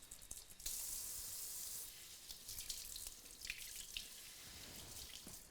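Kitchen tap running into a sink as a bunch of fresh dill is rinsed under it. The stream starts about two-thirds of a second in, is strongest for about a second, then goes on more softly with splashes and drips off the herbs.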